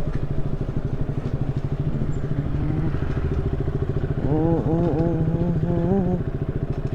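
KTM Duke 200's single-cylinder engine running while the motorcycle is ridden, a steady rapid pulse. From about four to six seconds in, a wavering pitched call rises above the engine.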